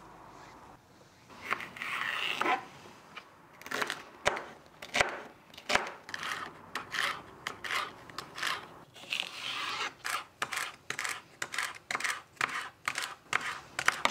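Chef's knife slicing celery stalks on a cutting board: crisp cuts through the crunchy stalk and knocks of the blade on the board, about two a second once the chopping gets going. A softer rustle of vegetables being handled about two seconds in and again around nine seconds.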